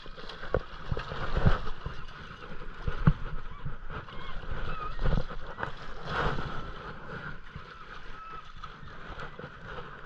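A hooked salmon thrashing and splashing in shallow water against shoreline rocks, with several sharp knocks in among the splashes.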